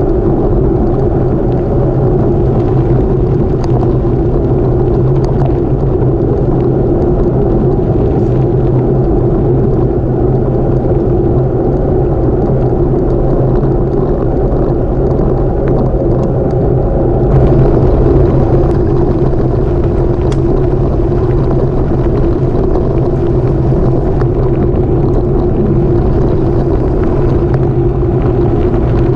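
Steady wind rush and rumble of bicycle tyres on a gravel road, picked up by a camera riding on the bike. About two-thirds of the way through, it turns rougher and slightly louder for a few seconds.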